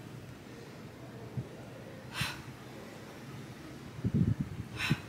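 Two short, sharp exhales during a Pilates leg-lift exercise, about two and a half seconds apart. A low rumble comes just before the second exhale, the loudest moment.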